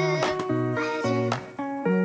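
Background music: a light instrumental vlog track with chords and a bass line that change about every half second, a steady beat, and a gliding lead melody.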